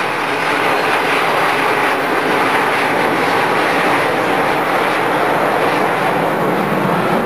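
A formation of Aermacchi MB-339 jet trainers, each with a single Rolls-Royce Viper turbojet, flying past. Their jet noise is a loud, steady rush.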